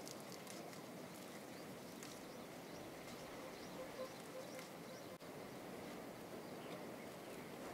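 Faint rustling of leafy vine foliage with small scattered clicks as wild flower stalks are plucked by hand, over a quiet rural background.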